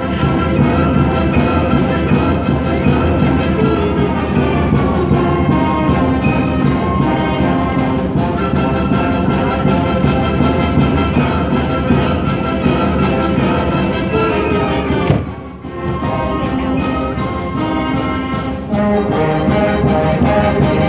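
A student concert band playing, with woodwinds, brass and percussion sounding together. The music drops away briefly about fifteen seconds in, then resumes.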